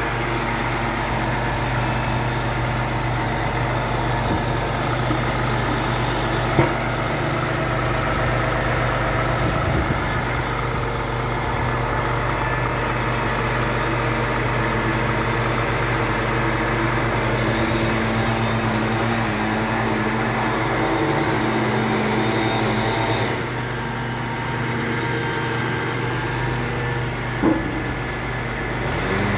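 Grapple truck's engine running steadily to power its hydraulic boom, with its note dropping about two-thirds of the way through. Two short sharp knocks stand out, one about a quarter of the way in and one near the end.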